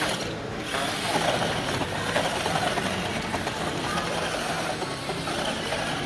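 Electric motor and gears of a remote-control toy truck running as it drives through sand.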